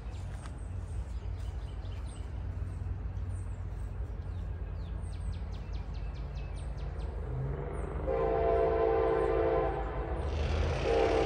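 CSX freight train's diesel locomotives rumbling low and growing slowly louder as the train approaches, then the locomotive air horn sounds one long blast about eight seconds in and a second blast starts near the end.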